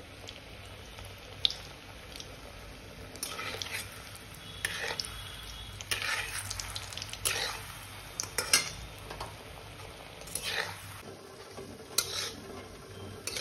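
Kala jamun balls frying in ghee in a metal kadai with a low steady sizzle, while a metal spoon clinks and scrapes against the pan in short strokes, again and again, as the balls are turned.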